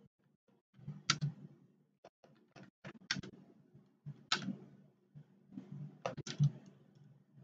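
Computer keyboard keys being typed, irregular sharp clicks with several louder strokes, as a login ID and password and then a menu number are entered.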